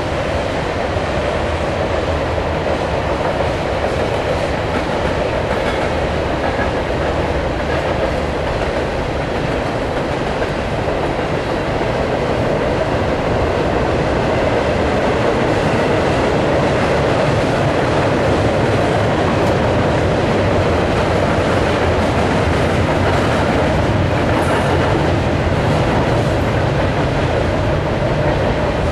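Double-stack intermodal freight train's cars rolling past, a steady noise of steel wheels running on the rails.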